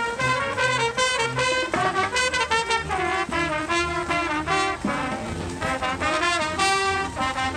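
Music with brass instruments playing a melody of short, quickly changing notes.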